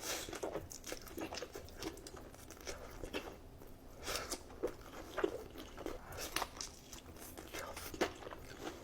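Close-miked bites and chewing of a crispy fried chicken wing: irregular crunches and wet mouth clicks.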